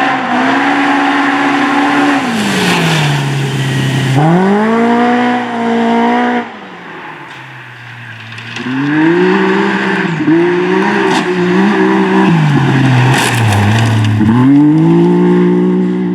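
Rally car engine revving hard, its pitch climbing and dropping with each gear change and lift-off. About six and a half seconds in the engine sound drops away suddenly, then the revving and shifting start again about two seconds later.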